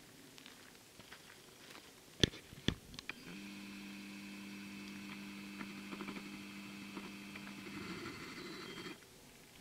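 Camcorder zoom motor whining steadily for about five and a half seconds as the lens zooms in, starting and stopping abruptly. A few sharp handling clicks come just before it.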